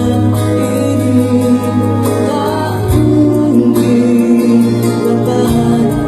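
Recorded Malay pop ballad music playing: an instrumental passage without sung words, with steady bass notes under a melodic lead line.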